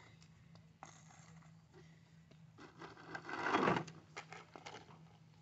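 Scattered light knocks and scrapes of handling, with one louder rushing scrape about three and a half seconds in.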